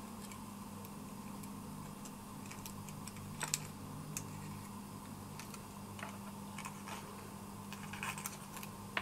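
Light, irregular clicks and taps of small parts of an H0 model locomotive being handled and fitted back into place, with a few sharper clicks about three and a half, six and eight seconds in. A steady low hum runs underneath.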